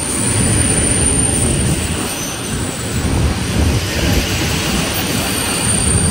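Freight train wagons rolling past at close range: a steady rumble of steel wheels on the rails, easing slightly a couple of seconds in.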